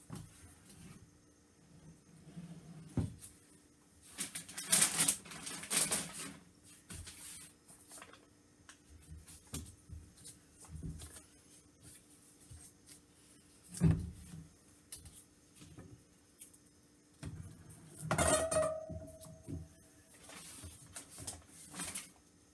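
Handling noises at a wooden wire soap cutter as blocks of soap are moved and set in place: bursts of scraping and rustling, a sharp knock past the middle, and a clatter with a short ringing tone near the end, over a faint steady hum.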